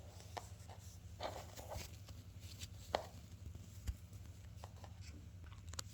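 Faint handling noise: a few light, scattered taps and small rustles as an opened toy package and the scrunchie inside are handled, over a steady low hum.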